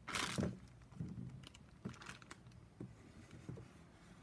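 Small plastic bag of beads crinkling as it is picked up and moved, the loudest rustle just after the start, followed by a few softer knocks and rustles as sheets of craft foam are handled on a table.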